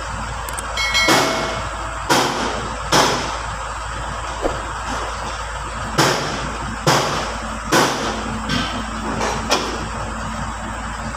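Steel brake discs from a Landini DT85 tractor's brake pack clanking against each other and the housing as they are handled and worked out by hand. About eight sharp metallic knocks come at uneven intervals, and one rings briefly about a second in.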